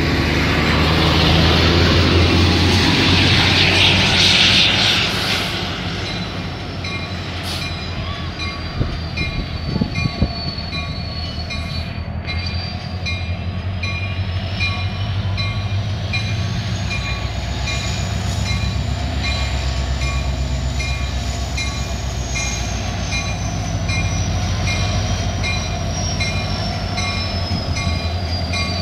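Diesel locomotive hauling a passenger train, approaching slowly: a steady low engine rumble, with a thin high squeal that slowly rises and falls in pitch. A few sharp clicks come about nine to ten seconds in.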